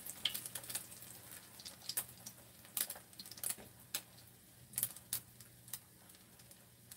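Scattered light clicks and taps of chopsticks against a frying pan and dishes, irregular and spaced out, over a faint low steady hum.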